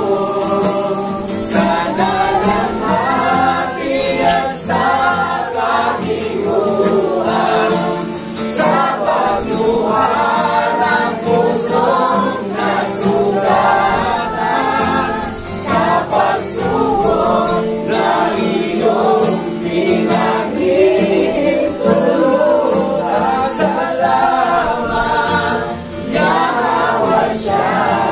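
A congregation singing a Tagalog praise song together, many voices in unison.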